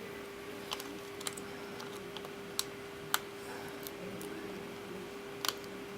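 Scattered small plastic clicks and taps, about half a dozen spread irregularly, as the display cable connector of a replacement laptop screen is handled and plugged into its port, over a steady faint hum.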